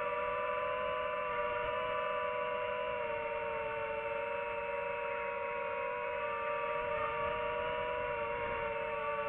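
FPV quadcopter motors and propellers whining steadily, several close pitches sounding together, dipping slightly in pitch about three seconds in.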